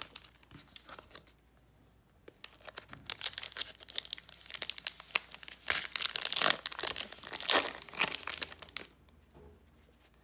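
Foil wrapper of a Pokémon trading card booster pack crinkling and tearing open: a dense run of crackles starting about two seconds in and stopping about a second before the end, loudest towards the end.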